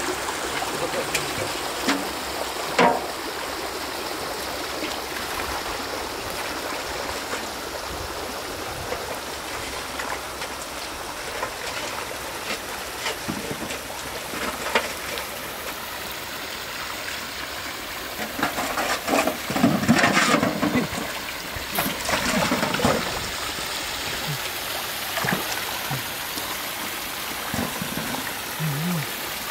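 Shallow stream water running and trickling over rocks, with a small waterfall. Irregular splashing as someone wades and reaches into the water, loudest about two-thirds of the way through.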